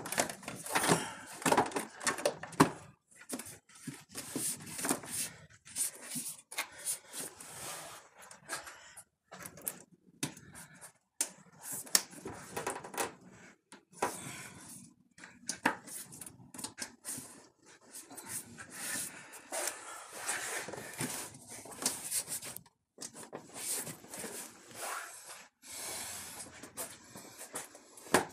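A windshield cowl panel being handled and fitted back in place: irregular rustling, rubbing and light knocks, with short quiet gaps.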